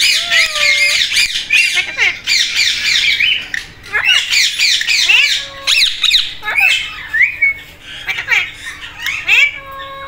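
Alexandrine and Indian ringneck parakeets squawking. The harsh, screechy calls come in quick runs throughout, broken by a few lower whistled glides.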